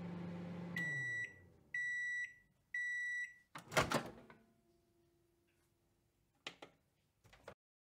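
Microwave oven ending its cycle: its running hum winds down about a second in, three beeps signal that it is done, then the door pops open with a loud clunk, followed by a few faint clicks.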